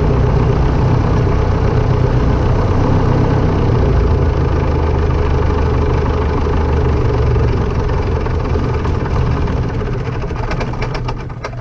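Light aircraft's piston engine running steadily, easing down in level over the last few seconds as a run of clicks comes in.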